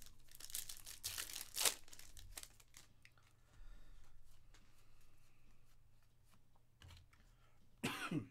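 Foil wrapper of a Panini Contenders football card pack being torn open by hand, a loud crinkling tear in the first two seconds. This is followed by quieter rustling as the cards are handled, and a brief loud noise near the end.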